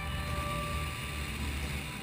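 Engine and slipstream of a Cap 10 aerobatic light aircraft, heard from a camera mounted on the plane in flight: a steady low rumble.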